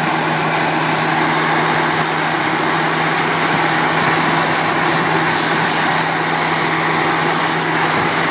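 Truck-mounted water-well drilling rig running steadily: a low engine drone under a loud, even hiss of air and water blowing out of the borehole as the drill hits water.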